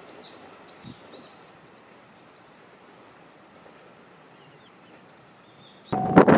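A few faint small-bird chirps over a quiet rural background. Near the end, a level-crossing warning bell abruptly starts ringing again as a steady tone, together with a sudden loud rushing noise.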